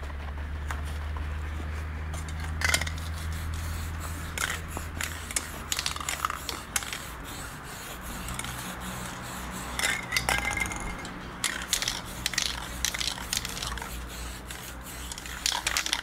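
Aerosol spray-paint cans hissing in short bursts, mixed with metallic clinks and knocks as cans are handled and set down on a wooden table. A steady low hum runs underneath.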